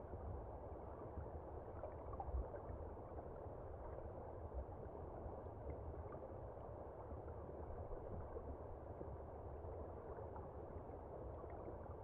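River current heard from underwater among the stones of a shallow stream: a steady, muffled rushing and gurgling, with a brief low thump about two and a half seconds in.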